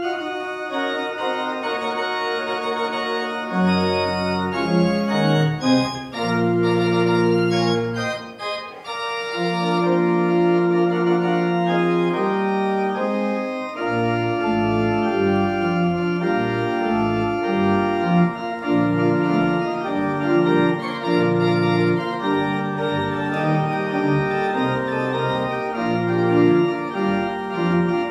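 Church organ playing the postlude: sustained chords, with deep pedal bass notes joining about four seconds in.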